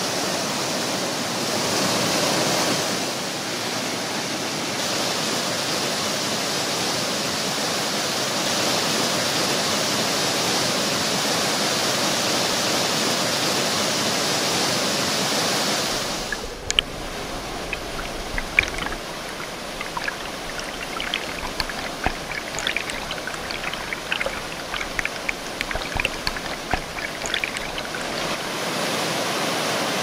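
Mountain brook cascade rushing over ice-encrusted rocks: a steady rush of water. About halfway through it changes to a closer, splashier sound full of distinct splashes and drips, and near the end it returns to a steady rush.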